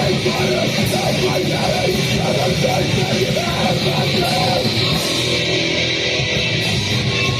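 Live band playing loud, heavy, distorted music, a dense wall of guitar and drums with no breaks.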